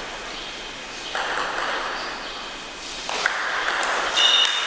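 Table tennis rally: the ball clicking off the bats and the table in quick strikes, over a hiss of hall noise that swells and fades.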